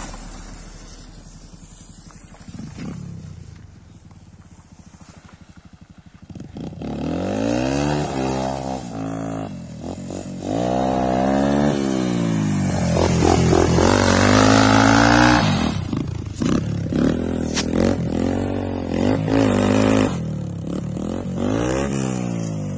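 Motorcycle engine idling low at first, then revved hard over and over from about six seconds in, its pitch climbing and dropping with each rev, as in a tyre burnout with the rear wheel spinning.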